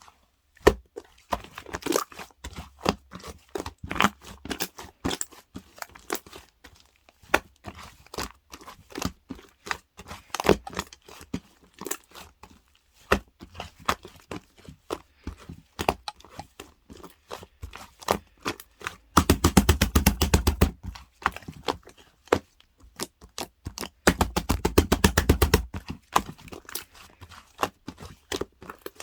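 Close-up handling sounds: crinkling, crackling and tapping of small objects, with two bursts of rapid, even ticking about two-thirds of the way through, a few seconds apart.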